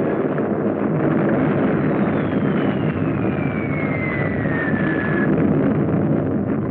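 Bombardment sound effects on an old narrow-band film soundtrack: a dense, steady rumble of battle noise, with the whistle of a falling projectile sliding down in pitch from about two seconds in and cutting off about three seconds later.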